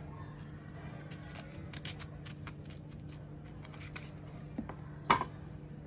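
Kitchen knife slicing the spiny skin off a piece of raw jackfruit: a run of small crisp cutting clicks several times a second, with one louder click about five seconds in.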